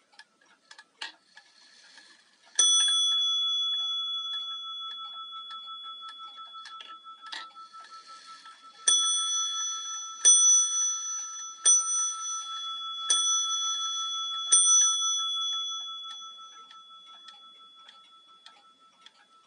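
Warmink Wuba Dutch tail clock striking its bell, set off by the minute hand being turned to the hour. There is one strike about two and a half seconds in, then five more about a second and a half apart from about nine seconds in, each left ringing. Over this the escapement ticks steadily, with two sharp clicks of the mechanism before the strikes.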